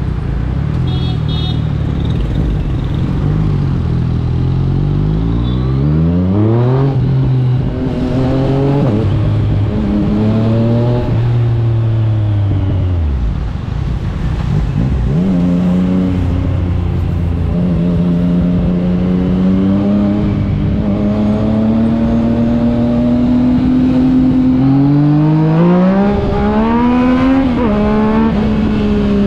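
2021 Yamaha MT-09's 890 cc three-cylinder engine through an Akrapovic exhaust, on the move. It pulls up through the gears, the pitch climbing and then dropping at each upshift, and eases off about halfway with the pitch falling. It then holds a nearly steady cruise and revs up hard again with quick shifts near the end.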